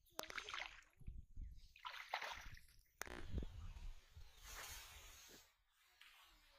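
Pond water sloshing and splashing around a person's legs as they wade slowly through the shallows, a slosh roughly every second.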